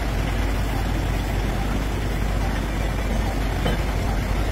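Heavy truck engine running steadily at idle, a low continuous rumble.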